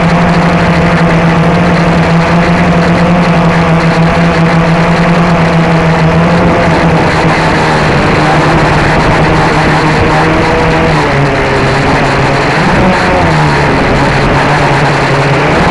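Blade 350 QX quadcopter's brushless motors and propellers buzzing loudly, heard from a camera mounted on the aircraft while it hovers. The pitch holds steady at first, then wavers up and down in the second half as the motors adjust.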